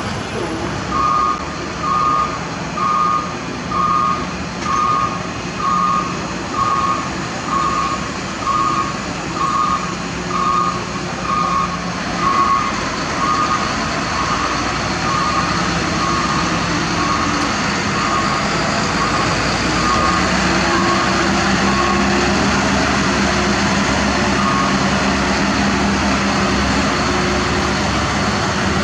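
Truck reversing alarm beeping about once a second, fading out about two-thirds of the way through, over a truck engine running steadily.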